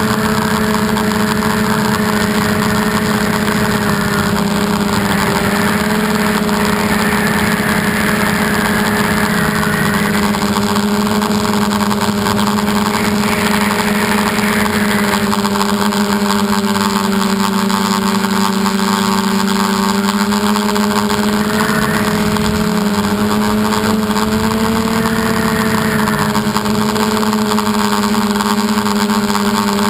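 Model aircraft's motor and propeller running steadily, a strong buzzing tone that wavers slightly in pitch as the throttle and airspeed change, picked up by the camera on board, with wind noise over it.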